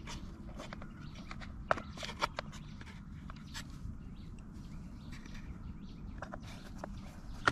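Scattered clicks and taps of hard plastic as the parts of a toy truck are handled and fitted together, over low steady background noise. Near the end a small screwdriver drives a screw into the plastic chassis, with a few more clicks.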